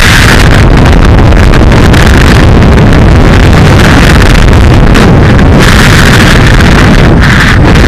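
Wind rushing over the microphone during a parachute canopy descent: a loud, overdriven rumble with a brighter hiss that comes and goes every second or two as the canopy turns.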